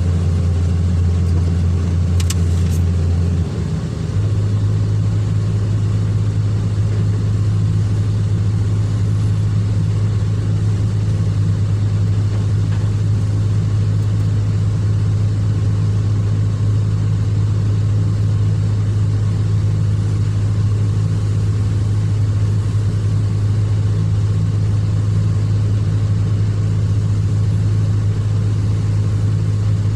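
Heavy excavator's diesel engine running steadily under load, with a brief dip about three and a half seconds in before it settles at a slightly higher pitch.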